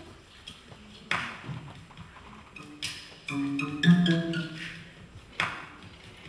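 Sparse stage music: a few sharp percussive hits spaced a couple of seconds apart, and around the middle a short cluster of ringing pitched notes, the loudest moment.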